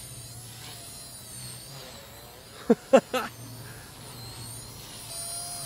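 Small electric collective-pitch RC helicopter flying, its motor and rotor making a steady hum under a high-pitched whine that wavers up and down with the throttle. About halfway through, three short loud bursts cut in over it.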